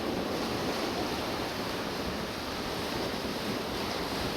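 Steady rush of waves breaking on a shore, churned up after a storm.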